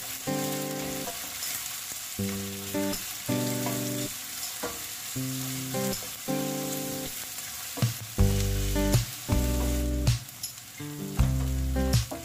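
Sliced onions sizzling in hot oil in a stainless steel pan as a wooden spatula stirs them, with a few sharp clicks of the spatula. Background music runs over it, its bass growing much heavier about eight seconds in.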